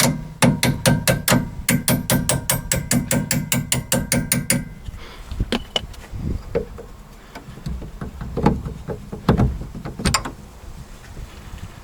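A hammer striking a steel bolt to drive it out of the rear strut mount: a fast, even run of ringing metal blows, about four a second, for the first four seconds or so. Then scattered softer metal clanks and knocks as the bolt works loose.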